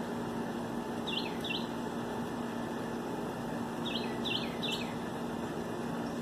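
A songbird singing short, high, down-slurred notes: a pair about a second in, then three more in quick succession a few seconds later, over a steady background hum.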